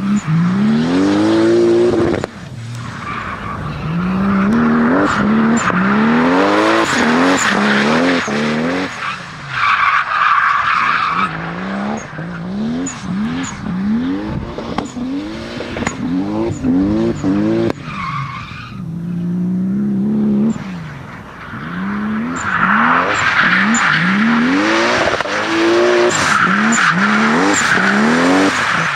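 Toyota 2JZ-GTE twin-turbo straight-six in a drifting Nissan S13, revved hard over and over, its pitch rising and dropping back again and again. The rear tyres squeal as they spin and slide, loudest about ten seconds in and again through the last third.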